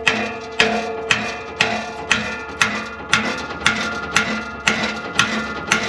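Steady hammer blows on ringing metal, about two a second, each leaving a lingering metallic ring. They are typical of hammering at a seized, rusted exhaust clamp to break it loose.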